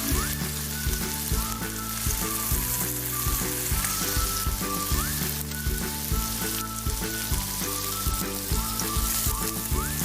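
Food frying in hot oil in a pan, a steady sizzling hiss, under background music with a steady beat.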